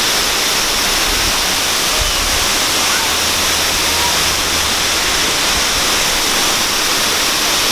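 Water spilling over a dam as a waterfall: a loud, steady rush of water.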